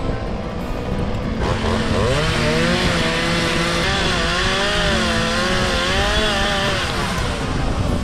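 Two-stroke chainsaw cutting wood. About a second and a half in the engine comes up to speed, and its pitch wavers up and down as the chain bites and loads the motor.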